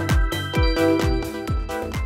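Electronic background music: held synthesizer chords over a steady kick drum about two beats a second.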